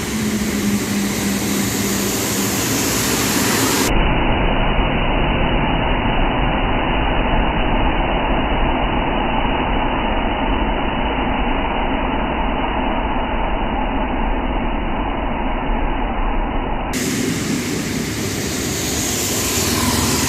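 Steady rain noise, an even hiss with no separate drops standing out. About 4 s in it turns dull and deep, with the treble gone and a low rumble added, and about 17 s in it turns bright again.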